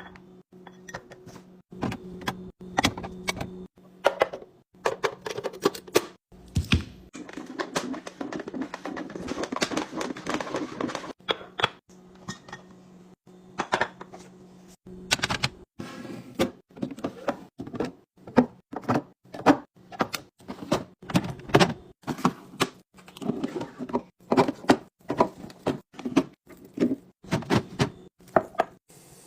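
Kitchen containers, lids and dishes being handled and set down: a rapid, irregular run of clicks, knocks and clinks, over a steady low hum that stops about halfway.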